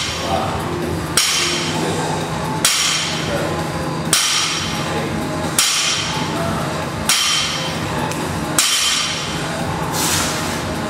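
Barbell with bumper plates clanking onto a rubber gym floor at each deadlift rep, a sharp knock about every one and a half seconds, seven times, the last one softer. Steady background music plays underneath.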